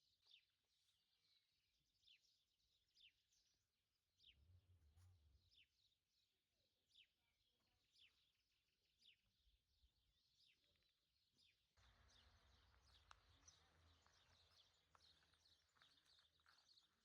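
Faint bird calls: short chirps that drop in pitch, repeated about once a second. About twelve seconds in, a low rumbling background noise comes in suddenly.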